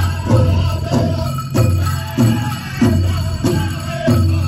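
Powwow drum song: a big drum struck in a steady beat, a little under two beats a second, under a group of singers, with bells jingling along.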